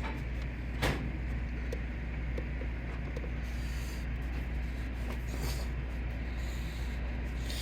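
Handling of printer parts and wiring while a bracket is fitted: one sharp click about a second in, then scattered faint clicks and short rustles, over a steady low hum.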